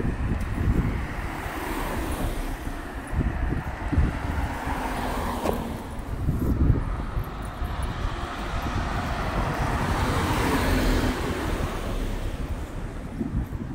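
City street traffic: cars passing over a steady low rumble, with one growing louder and fading away again in the last few seconds.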